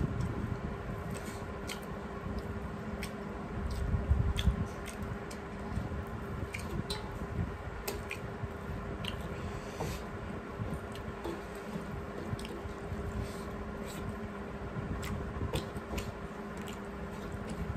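Two people eating rice and curry with their hands from metal plates: wet squelching as the rice is mixed and squeezed, chewing and lip smacks, with many scattered small clicks and a louder low bump about four seconds in.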